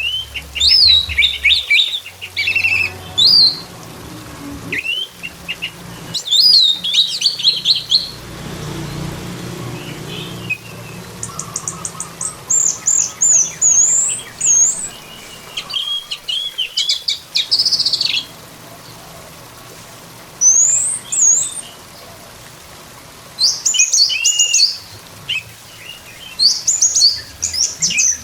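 Orange-headed thrush singing: short, varied phrases of rapid gliding whistles and trills, repeated with short pauses between them.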